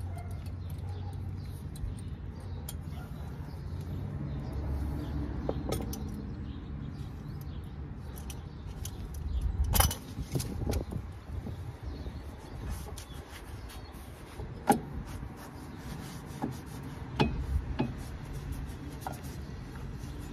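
A ratchet wrench and sockets working the bolts of a car's front brake caliper: scattered metal clicks and clinks, with a few sharper knocks about ten, fifteen and seventeen seconds in, over a low rumble.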